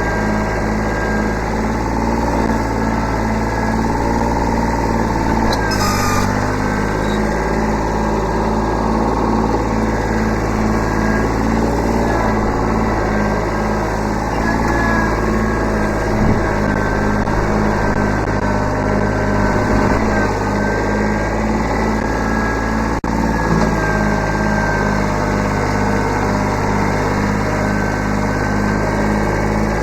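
Kubota B7100 subcompact tractor's three-cylinder diesel engine running steadily, with one sharp knock past the middle.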